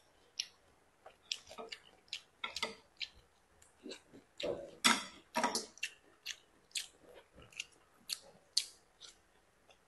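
A person chewing a mouthful of kale and sliced beef: a string of short, sharp wet clicks at an irregular pace, loudest about five seconds in.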